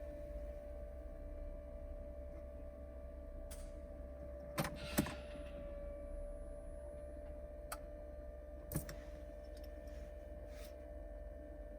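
Steady whine with a low hum from a Smart 451 CDI with the ignition switched on. This is the unexplained noise that comes on with the ignition, and it is being recorded for diagnosis. A few sharp clicks come through around the middle.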